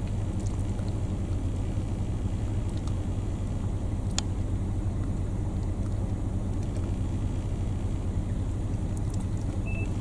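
Steady low rumble of an idling vehicle engine, with a single faint click about four seconds in.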